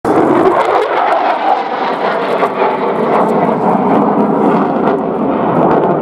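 Loud, steady jet engine noise from a military jet aircraft, with a few faint clicks.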